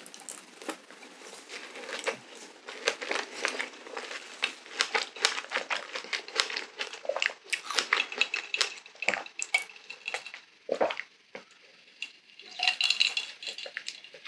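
Close-miked chewing of a strawberry dipped in Nutella: wet, squishy mouth sounds with many small clicks. Partway through come sips of a milky drink through a straw.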